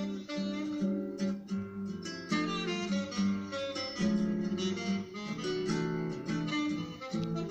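Saxophone playing a jazz melody over a plucked acoustic guitar accompaniment.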